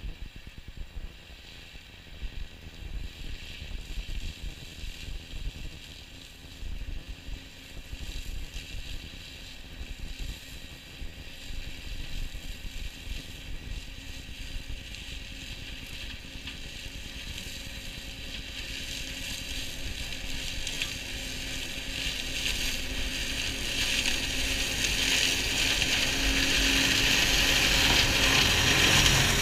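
New Holland tractor and Shelbourne flail hedge cutter running as they come along the ditch, growing steadily louder until the flail head passes close by near the end. Gusts of wind buffet the microphone in the first half.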